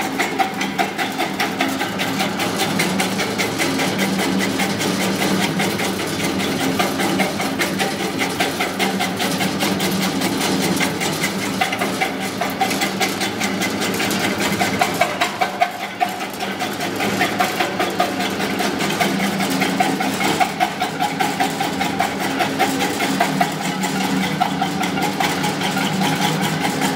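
Supari (areca nut) cutting machine running steadily, its motor humming under a fast, even clatter from the cutter slicing the nuts.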